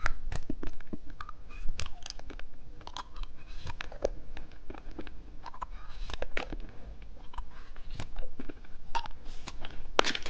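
Close-miked chewing of watermelon bubble gum: irregular soft, wet mouth clicks and smacks.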